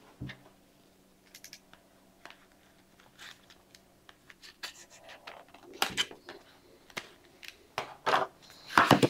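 Paper and thin card being handled: scattered quiet rustles and light clicks as a manual booklet and tip cards are picked up, leafed through and set down on a wooden table, a little louder in the second half.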